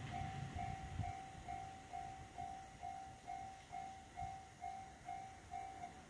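Japanese railroad crossing warning bell ringing its repeated 'kan-kan' chime, about two strikes a second and slowly getting quieter, then stopping at the end as the crossing clears. A passing train's rumble fades out about a second in.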